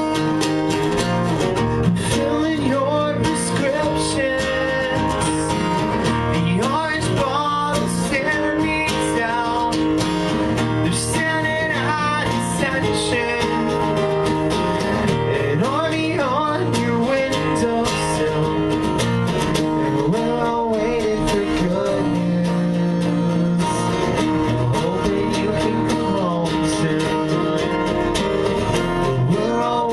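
Pop-punk band playing a song live: strummed guitar chords with a singing voice.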